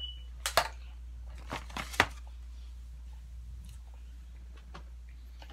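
A few sharp clicks and crackles from a clear plastic clamshell food container being handled, mostly in the first two seconds, over a steady low hum.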